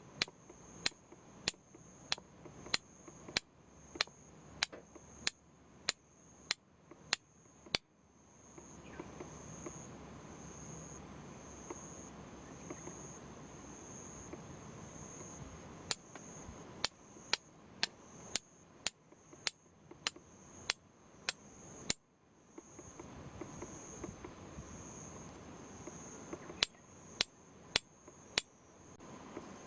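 Runs of sharp knocks, evenly spaced about two a second, stopping and starting three times. Underneath, insects chirr steadily in a high, faintly pulsing drone.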